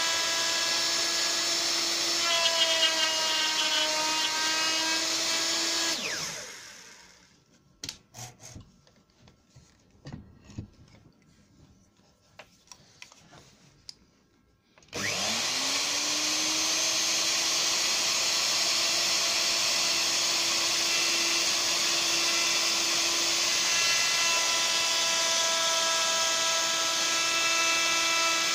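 Plunge router with a straight bit running at speed in pine, its pitch dipping briefly about four seconds in. About six seconds in it is switched off and winds down. A few light knocks follow, then it is started again, rises quickly to full speed and runs steadily.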